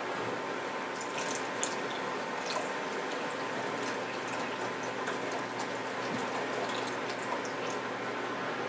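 Faint wet liquid sounds with scattered light clicks and taps, from raw chicken breast and sauce being handled and mixed in a container.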